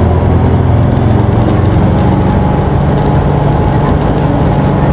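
Diesel engine of an Isuzu PKG-KV234L2 city bus running under way, heard from inside the cabin: a steady engine drone whose tone shifts about two seconds in.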